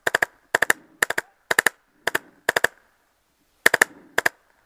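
Paintball marker firing rapid shots, mostly in quick pairs about half a second apart, with a pause of about a second past the middle.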